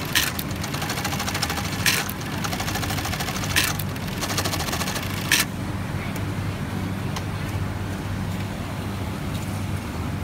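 Industrial sewing machine stitching a coat button on at speed, a fast run of needle strokes broken by a louder clack about every one and a half to two seconds. It stops about halfway through, leaving a steady low hum.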